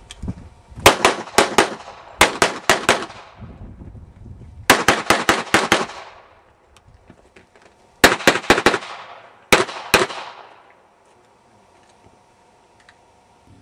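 Rapid pistol fire in five quick strings of roughly three to six shots each, with short pauses between strings, each shot trailing off in a brief echo; the firing stops about ten seconds in.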